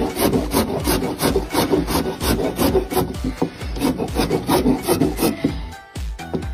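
Metal hand file rasping across a wooden slingshot frame in quick, even back-and-forth strokes, about three to four a second, filing the surface flat, with a brief pause near the end.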